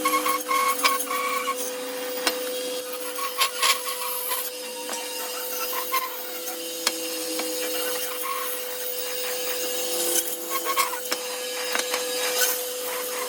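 Band saw running with a steady hum while its blade cuts through wood, with rough scraping and scattered clicks.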